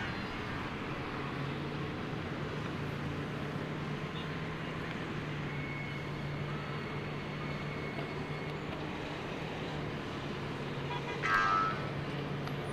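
A motor vehicle's engine running steadily, with traffic noise around it. Near the end there is a short, loud pitched sound.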